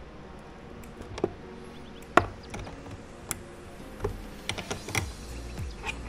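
Metal wrench clicking and tapping against a bolt on a car battery's positive terminal as it is turned: scattered sharp clicks at uneven intervals, the loudest about two seconds in.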